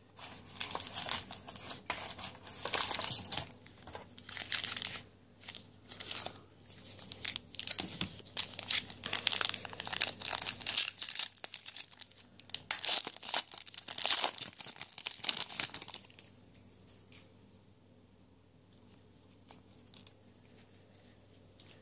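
Shiny wrapper of a 2016 Limited Football trading-card pack crinkling and tearing as it is worked open by hand, in a run of crackles that stops about three-quarters of the way through.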